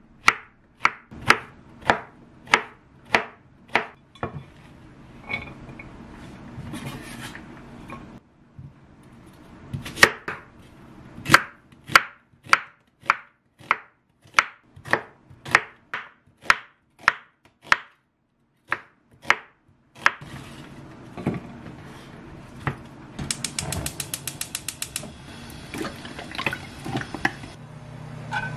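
Chef's knife cutting zucchini and then onion on a wooden cutting board: a steady run of sharp knife strikes on the board, about two a second, with a short break about 8 seconds in. Near 20 seconds the strikes stop, giving way to a low steady hiss with a quick run of rapid fine ticks a few seconds later.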